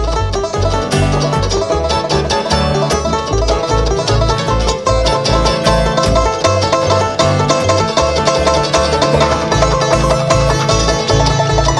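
A bluegrass string band playing: fast picked banjo with guitar over a steady bass line of low notes.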